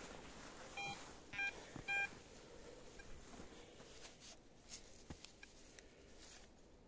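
XP Deus metal detector giving three short beeps about half a second apart, signalling a target under the coil. Faint rustling and small clicks follow.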